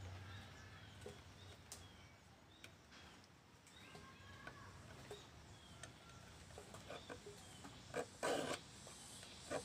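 Mostly faint, with small clicks and a few short chirps; about eight seconds in, a file rasps across the teeth of a wood hand saw in a short burst, the loudest sound. The dull saw is being sharpened tooth by tooth.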